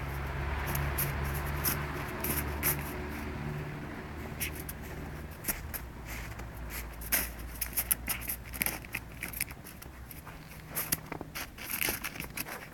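Irregular crunching and scraping in snow, a rapid scatter of short clicks, over a low steady hum that fades out about halfway through and briefly returns near the end.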